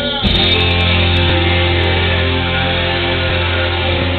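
Loud distorted rock music with a steady low bass note held underneath.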